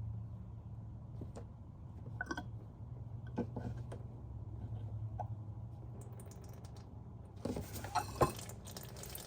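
Scattered light clicks and taps of hand work at the differential, over a steady low hum. Near the end a hiss starts along with a quicker run of clicks and knocks.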